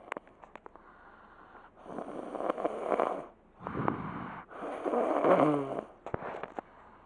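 A sleeping person snoring: two long snoring breaths, the first about two seconds in and a louder one about three and a half seconds in, the second ending in a wavering, pitched rattle.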